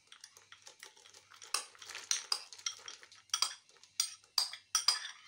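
Metal spoon clinking and scraping against a small china bowl as dried split fava beans are scooped out and tipped into a metal pot. The clinks are irregular: sparse at first, then louder and more frequent from about a second and a half in.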